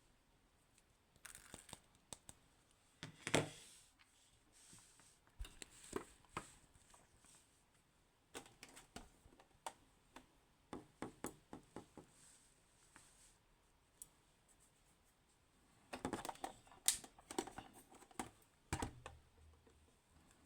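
Small metal clicks, taps and scrapes at an irregular pace as the pins and core of a DOM S pin tumbler lock are handled and fitted back into place, in clusters about 3 s in, through the middle and near the end.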